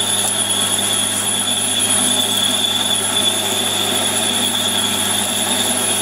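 Warco lathe running while a 17 mm twist drill cuts into aluminium bar, throwing off long ribbons of swarf. A steady, loud machining noise with a high whine held over it, a bit of a racket.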